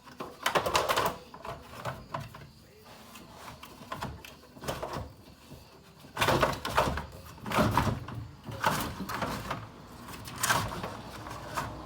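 Plastic radiator cooling fan assembly being wrestled out of a car's engine bay: irregular scraping, knocking and rattling against the surrounding parts, busiest in the second half.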